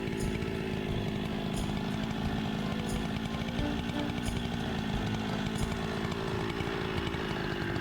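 Chainsaw running at a steady high speed while cutting into a red oak trunk during felling.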